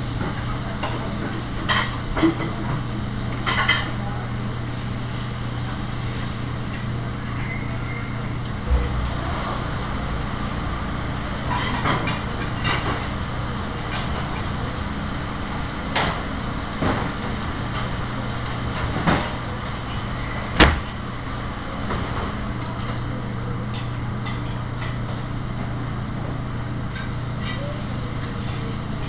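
Steady drone of a commercial kitchen's exhaust hood and gas range, with food sizzling in sauté pans and scattered short clanks of metal pans and utensils; the sharpest clank comes about two-thirds of the way through.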